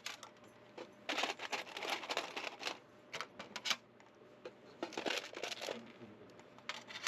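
Irregular crinkling and light clicking of a small collection of shark's teeth and their packaging being handled at close range.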